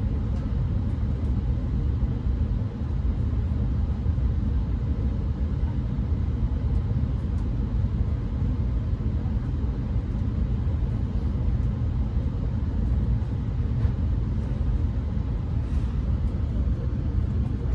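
Steady low rumble inside an Amtrak Pacific Surfliner passenger train standing at a station, heard from within the car.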